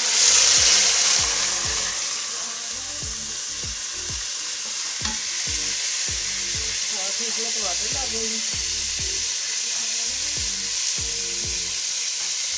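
Browned onions in hot ghee sizzling hard in an aluminium pot as ginger-garlic water hits the oil. The sizzle is loudest in the first second or so, then settles to a steady sizzle as a wooden spatula stirs the pot.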